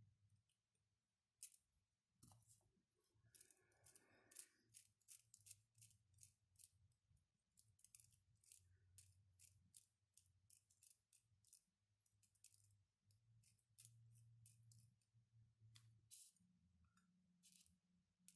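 Many small, irregular plastic clicks and snaps as the 3D-printed parts of a mechanical counter are fitted together and turned by hand, with a brief squeak of plastic rubbing a few seconds in.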